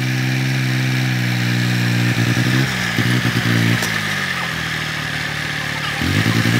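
Fordson Dexta tractor engine running under load while pulling a plough through the soil; its pitch sags in the second half and picks up again near the end.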